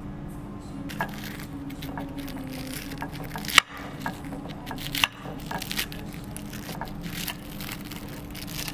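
Knife and fork cutting into a crisp deep-fried whole fish on a ceramic plate: crunching of the fried skin with scrapes and clinks of the metal cutlery on the plate. The loudest is a sharp clack about three and a half seconds in, with another about five seconds in.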